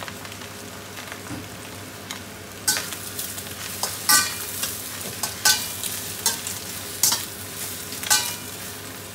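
Mushroom slices and scrambled egg sizzling in a hot stainless steel wok. From about two and a half seconds in, a spatula stirs them, scraping against the wok roughly once a second, some strokes with a short metallic ring.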